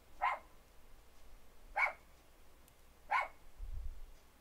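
A dog barking, three single barks about a second and a half apart, with some low handling noise near the end.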